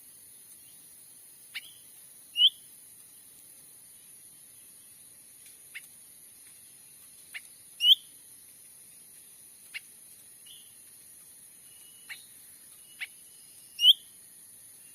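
Cucak ranting bird calls played as a trapping lure: short, sharp downward-sweeping notes a few seconds apart, and three louder short chirps, the loudest sounds, repeating about every five and a half seconds.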